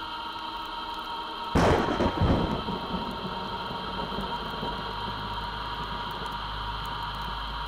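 A sudden thunderclap about one and a half seconds in, then a low rumble that carries on, over a steady droning background with held tones.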